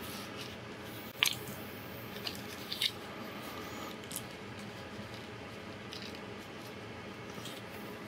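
Clear plastic zip bags of small screws being handled, giving a few short crinkles and crackles, the sharpest about a second in, over a steady low hiss.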